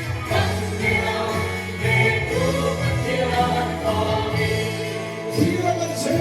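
Music with singing voices over a bass line of held notes that change about once a second.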